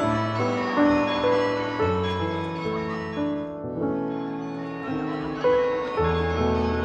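Background music: slow keyboard chords with held notes, changing roughly once a second.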